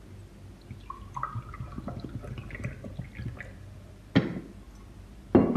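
Water poured from a stainless-steel bottle into a drinking glass, splashing and glugging irregularly. Two sharp knocks come near the end.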